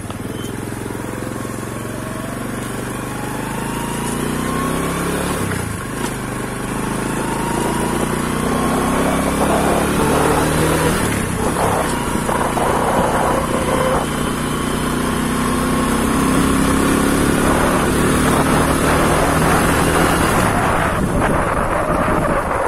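Underbone motorcycle engine running and revving up in repeated rising sweeps, getting louder as the bike gathers speed.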